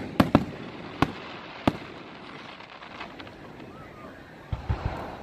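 Aerial fireworks shells bursting with sharp bangs, four of them in the first two seconds. Near the end comes a quick run of three or four deeper thumps.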